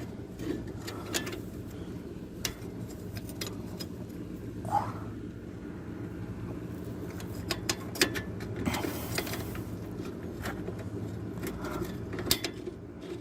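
Scattered metal clicks and clinks of a bolt, nut and tools being worked into the track bar mount under a Jeep Cherokee, over a steady low hum.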